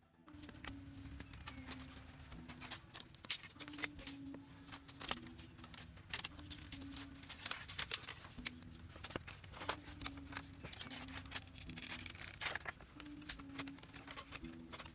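Hand building work: a busy stream of small clicks, scrapes and rustles of material being handled, over a soft low melody that steps from note to note.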